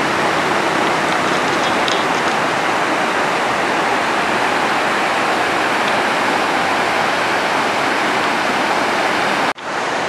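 A rain-swollen mountain stream in flood, its water rushing loudly and steadily over rocks. The sound drops out for an instant near the end and comes straight back.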